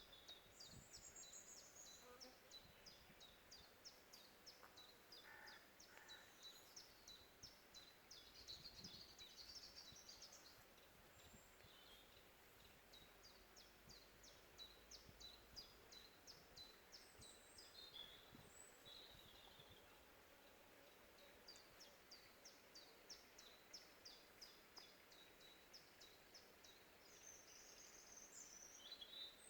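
Birds calling faintly: long runs of short, high chirps repeated about three or four times a second, with a few other high chirps and trills mixed in.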